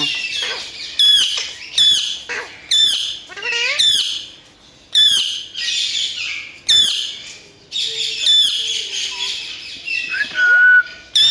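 Pet parrot screeching: a string of about ten short, shrill squawks, each sweeping down in pitch, roughly one a second.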